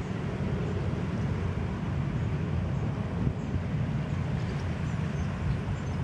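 Wind buffeting the microphone: a steady low rumble that flutters in strength.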